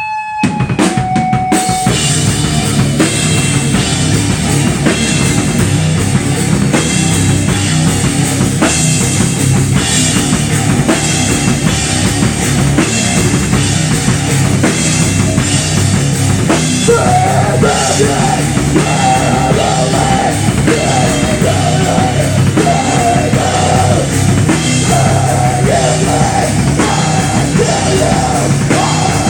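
A live rock band of drum kit, electric bass and electric guitar comes in loudly together to open a song and plays a steady, driving rhythm. A higher melodic line joins a little past halfway.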